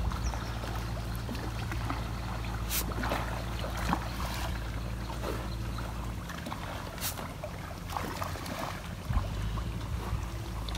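A small motor hums steadily, fading briefly about six seconds in and returning about three seconds later. Over it come water noise and a few sharp splashes as snakehead fish strike at the pond surface.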